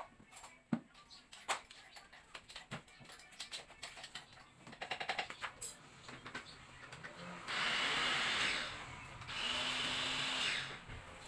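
Household cleaning around a TV and its stand: scattered light clicks and knocks of things being handled, then two steady rushing noises about a second long each, two thirds of the way through.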